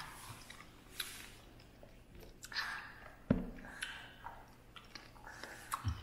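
A person chewing and biting food up close, heard as a string of small irregular clicks, with one low thump about halfway through.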